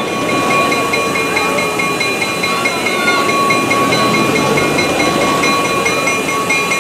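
CF7 diesel locomotive #2641 running at the head of a passenger train as it rolls slowly along street track, its engine rumbling steadily. Several steady high-pitched tones ring over the rumble throughout.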